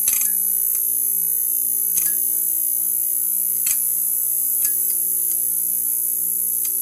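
Neon sign buzzing: a steady electrical hum under a strong high-pitched hiss, with a few sharp clicks or crackles scattered through it.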